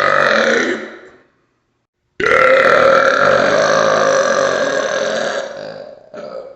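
Loud burps: the tail of one burp fades out about a second in. After a short gap comes one long burp of about three and a half seconds that trails off, with a brief last catch of sound near the end.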